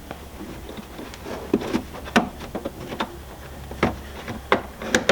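Handling noise as truck cab carpet is tucked by hand under a rubber floor mat: irregular soft knocks, taps and rustles, a few sharper ones near the middle and end.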